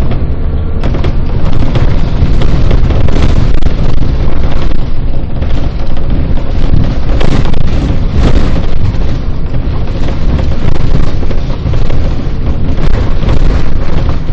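Loud, steady low rumble of a bus's engine and road noise heard from inside the moving bus.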